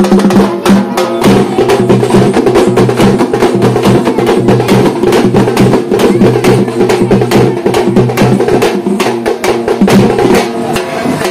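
Dappu frame drums beaten fast and loud in a dense, driving rhythm, over a steady droning tone.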